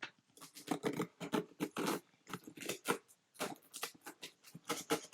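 Parcel packaging being handled and opened: irregular crinkling and crackling throughout.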